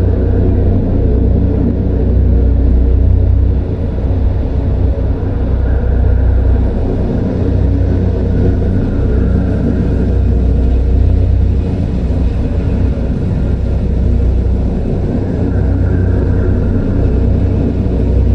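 Designed horror-forest ambience: a deep, steady, droning rumble with a grainy midrange haze and a faint higher swell three times.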